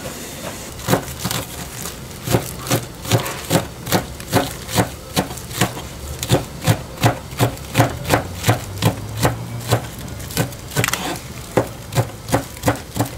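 Kitchen knife chopping green onions on a plastic cutting board: a steady run of sharp knocks, about two or three a second, thinning out near the end.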